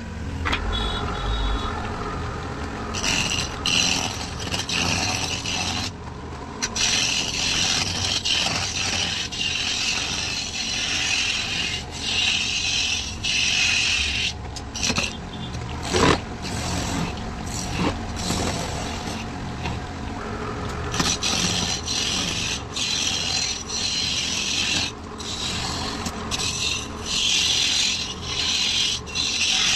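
Wood being turned on a lathe, scraping against the tool in repeated passes of a few seconds each with short breaks between them, and one sharp knock about halfway through.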